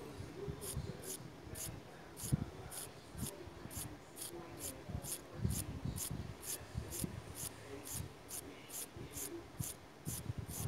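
Mechanical pencil scratching on vellum board in short, irregular strokes. A steady high ticking, almost three ticks a second, runs behind it.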